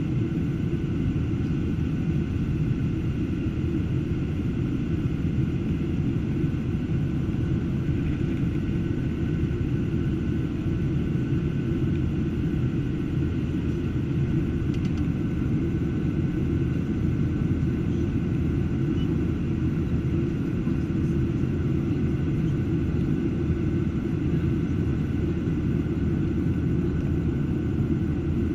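Steady cabin drone inside a Boeing 737-800 climbing after takeoff: its CFM56-7B turbofans and the airflow give an even low rumble, with a faint steady whine above it.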